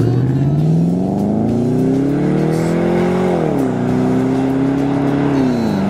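Pontiac G8 sedan accelerating away hard, its engine note rising steadily for about three seconds, dropping at an upshift, then climbing again and dropping at a second upshift near the end.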